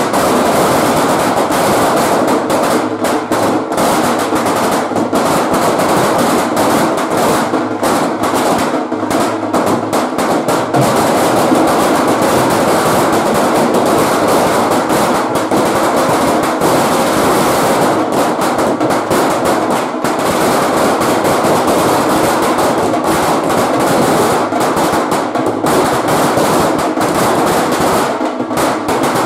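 A long string of firecrackers bursting on the road in a loud, continuous, rapid crackle of bangs.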